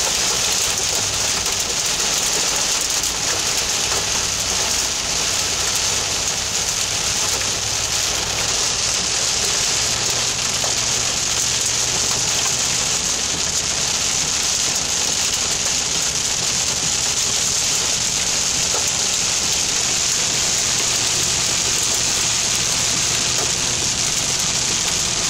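Heavy rain falling on a car's windshield and roof, heard from inside the moving car as a loud, steady hiss, with a low hum underneath.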